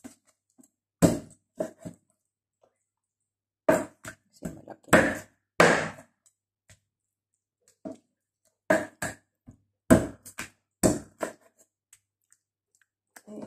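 Kitchen knife chopping through raw chicken pieces onto a wooden cutting board: an irregular string of thuds and knocks, some in quick pairs, with short pauses between.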